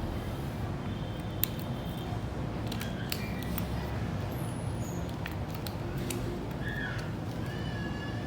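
Small metallic clicks and scrapes of a jigsaw blade being pushed into the Hoyoma jigsaw's tool-free blade clamp, with a sharper click about a second and a half in.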